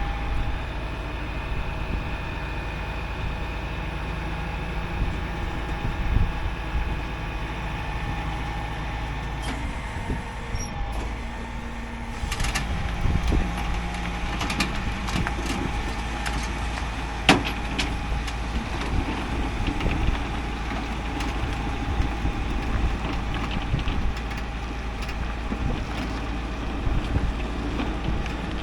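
Heavy 6x6 rollback tow truck running steadily, with scattered knocks and rattles that grow more frequent about halfway through.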